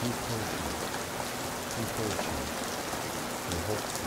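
Steady rain falling, an even hiss, with a few faint low sounds beneath it.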